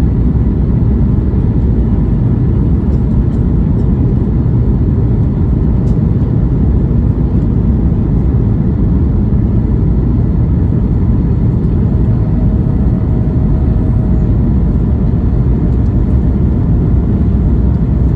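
Boeing 737 MAX 8 cabin noise heard from a rear window seat: a steady, loud low rumble of engines and airflow, with a faint steady tone joining about two-thirds of the way through.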